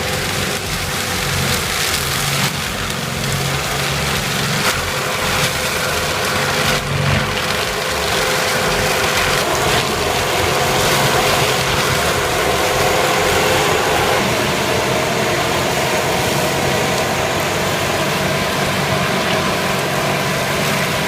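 Engine of heavy machinery running steadily, with a thin steady whine that fades about two-thirds of the way through.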